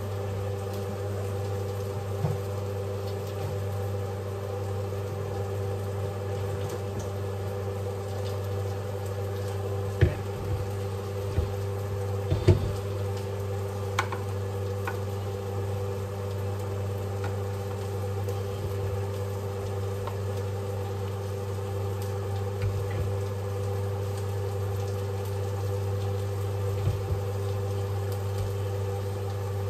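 A steady low mechanical hum from a running kitchen appliance, with a few light clicks and knocks of cookware and utensils between about ten and fourteen seconds in.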